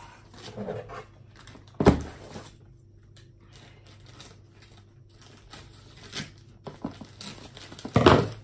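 A parcel being opened by hand: packaging tearing and rustling, with two louder sharp sounds, one about two seconds in and one near the end.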